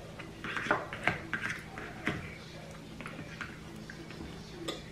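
Eating sounds: a metal spoon clinking and scraping in a ceramic bowl of yogurt and granola, with soft mouth sounds. Short irregular clicks and smacks, most of them in the first two seconds, a few later.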